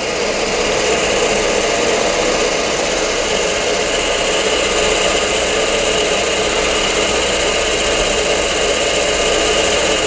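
Accuturn brake lathe running with a brake drum spinning on its arbor: a steady mechanical whir that builds a little over the first second. The cutter is still being wound in toward the drum and has not yet reached the scratching contact.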